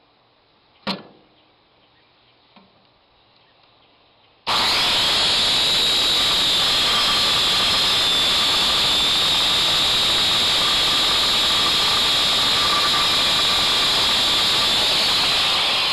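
A sharp click about a second in, then a circular saw starts suddenly and runs loud and steady, cutting the motor-mount plate to length.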